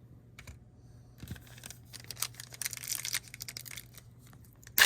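A foil trading-card pack wrapper crinkling and being torn open. It starts about two seconds in, builds up, and has one sharp, loud rip near the end.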